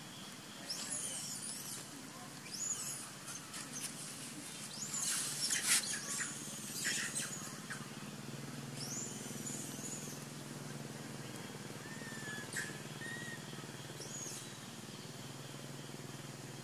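Baby macaque squealing in a string of short, high-pitched cries that rise and fall, loudest about five to six seconds in, with fewer and fainter cries later on.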